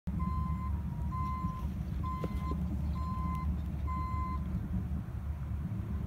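Heavy-equipment backup alarm beeping five times, about once a second, then stopping, over the steady low diesel rumble of a Cat D6 bulldozer and an articulated dump truck working dirt. Two short knocks sound just after two seconds in.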